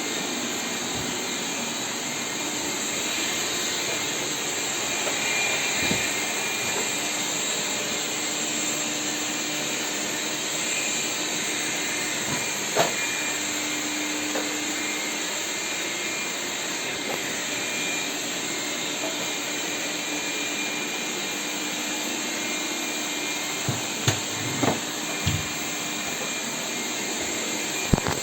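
Lefant M201 robot vacuum cleaner running with a steady whirring hiss, with a few short knocks, one about halfway through and several in quick succession near the end.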